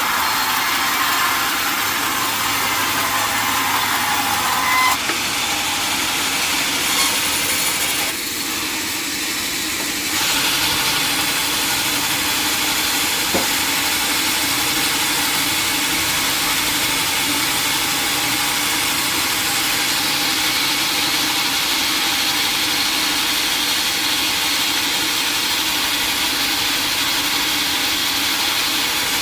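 Sawmill saw and its drive motor running steadily while sawing teak, with a short drop in level about eight seconds in.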